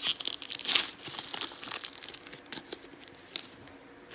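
A trading-card pack wrapper crinkling and tearing as it is pulled open by hand. The loudest crackles are in the first second, and fainter, scattered crinkles follow.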